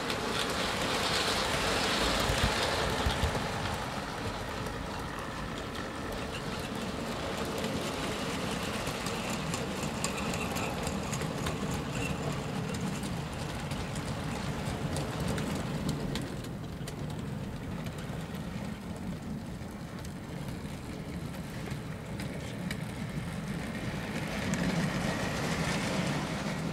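Model trains running on a model railway layout: the motors whir and the wheels click over the rail joints in a steady run. It swells louder as trains pass, about two seconds in and again near the end.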